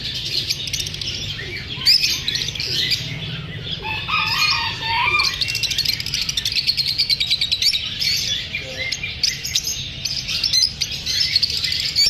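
A flock of caged lovebirds chirping and chattering continuously, with many rapid, high calls overlapping, over a low steady hum.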